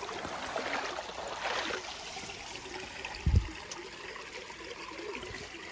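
Shallow stream water trickling and splashing, with a short dull thump about three seconds in.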